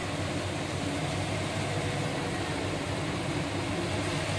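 Steady hiss of chopped onions and tomatoes frying in oil in an aluminium pot on a gas stove, under a low steady hum.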